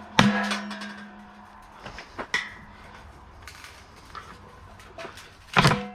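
Sharp metal clanks on a dryer drum as a ring is knocked and pried off it. There is a loud one just after the start, smaller knocks about two seconds in, and a loud pair near the end. The drum rings on with a steady tone after the first strike.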